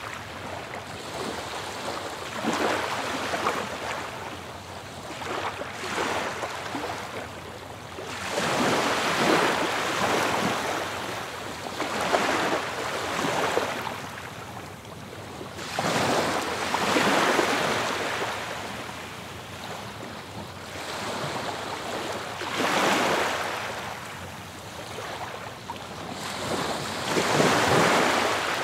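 Ocean surf washing onto a shore, the waves swelling and fading away about every four seconds.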